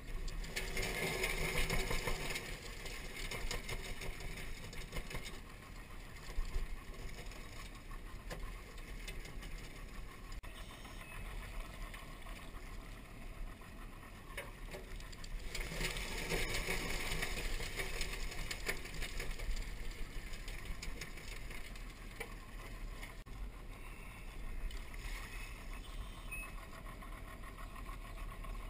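Yamaha outboard motor idling steadily on a crawfishing skiff. Two louder stretches of splashing and rattling, near the start and again about halfway through, come as mesh crawfish traps are lifted from the water and emptied.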